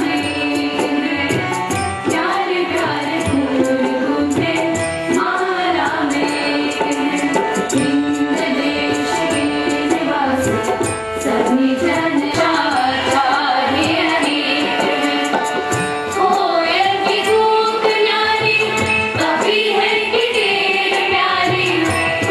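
Indian-style song being sung, a melodic vocal line with instrumental and percussion accompaniment.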